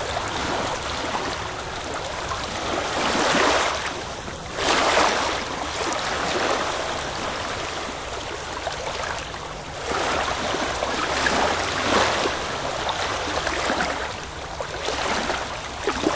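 Sea surf washing onto a rocky shore, swelling and falling back in repeated surges a few seconds apart.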